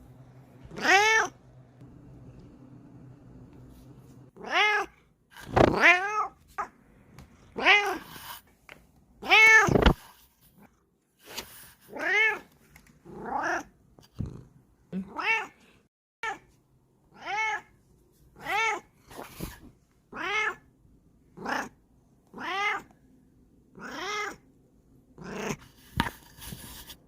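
Bengal cat meowing over and over in short calls that rise and fall in pitch, one near the start and then roughly one a second from about four seconds in. A few dull bumps come in among the meows.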